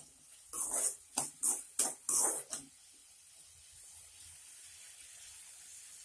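A perforated metal ladle scraping and stirring onions in a metal kadai, about five rough strokes in the first two and a half seconds, followed by a faint steady sizzle of the onions frying in oil.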